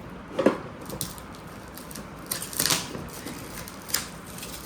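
Gift packaging being handled: a few sharp clicks and knocks, with a longer crinkling rustle about two and a half seconds in.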